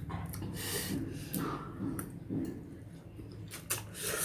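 A person sniffling several times in short sniffs, her nose running from eating very spicy noodles.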